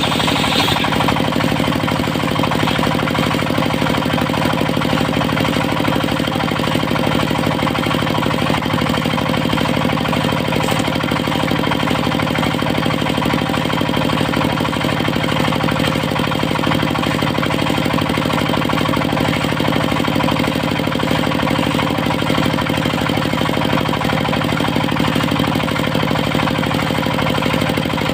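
Diesel engine of a portable circular-saw sawmill running steadily with a fast, even knock. A higher whine from the blade fades away about half a second in, and the engine then runs on with no cut.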